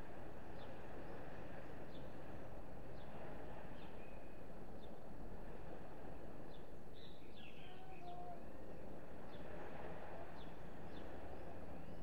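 Sparrows chirping: short, sharp chirps repeated every half second to a second, with a brief flurry of them partway through, over a steady low background noise.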